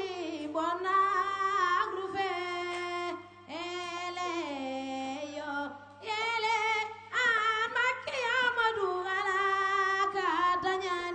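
A griotte, a Senegalese praise singer, singing solo into a microphone: long held notes that glide and waver in ornamented phrases, with two short breaks between phrases.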